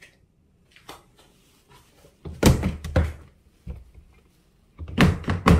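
Plastic storage cabinet doors being handled: two clusters of knocks and thuds, the first about two and a half seconds in and the second near the end.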